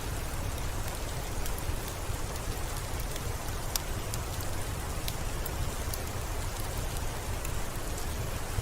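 Steady rain falling, with sharp individual drops ticking here and there over a low rumble.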